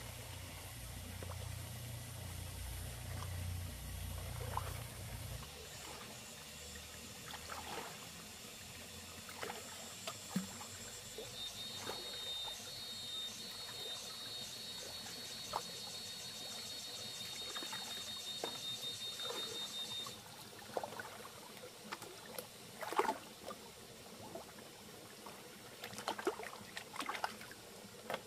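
Shallow river water splashing and trickling as hands work along the riverbed gathering shellfish into a metal basin, with scattered small splashes and knocks. A steady high buzz runs for several seconds midway.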